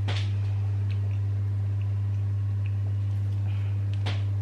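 Steady low electrical hum with a stack of overtones, with two sharp clicks, one right at the start and one near the end.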